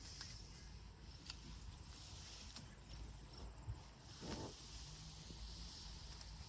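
Faint steady chirring of crickets, with a few soft knocks and a short rustle about four seconds in.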